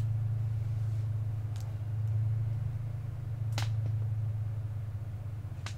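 A steady low hum with three sharp snaps or clicks, the loudest about halfway through, as a seat cover is worked into place during upholstery.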